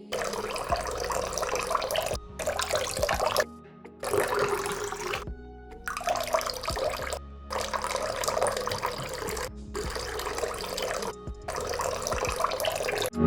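Water running and splashing in several short stretches, each cut off abruptly by a brief silence, with faint background music.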